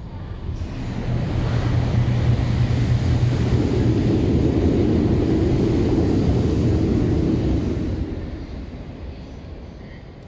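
Shinkansen passing at speed on the elevated viaduct overhead: a rushing rumble that swells over the first two seconds, holds for about six, then fades away.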